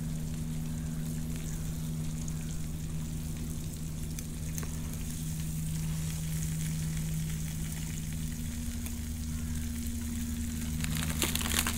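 Scallops in their shells sizzling on the embers of a wood fire, a steady hiss, with a steady low hum underneath. A short rustle comes near the end.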